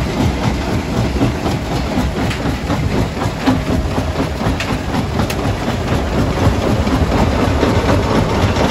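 Small flywheel-driven jaw crusher running and crushing rock: a steady low rumble packed with a dense clatter and frequent sharp knocks of stone breaking in the jaws.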